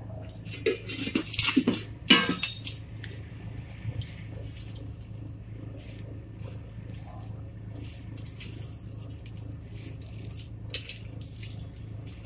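Hand mixing samosa filling of chopped onion, flattened rice and spices in a steel bowl: a crisp rustling and crunching with small clinks against the bowl. In the first couple of seconds there is a burst of steel clatter, with one sharp knock about two seconds in.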